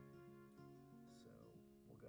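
Faint instrumental background music, a few sustained notes shifting in pitch.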